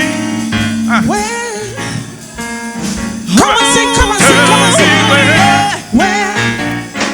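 Live gospel worship song: a voice sings with vibrato over a band, and grows louder and fuller about three seconds in.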